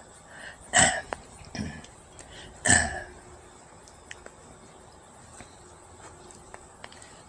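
Two short, sharp cough-like sounds about two seconds apart, with a fainter one between them.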